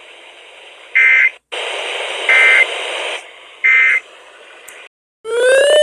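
Three short data bursts of the Emergency Alert System end-of-message code, about 1.3 seconds apart, over radio static. Near the end a rising, sweeping tone begins.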